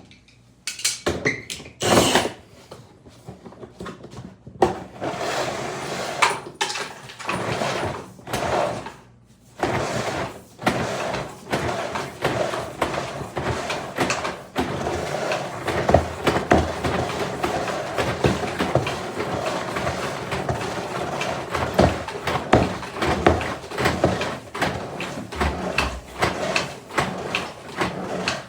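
Drain-cleaning cable machine running, its spinning cable rattling and clicking as it is fed down a basement floor drain toward a main sewer line clog. Separate knocks and clatter come in the first few seconds.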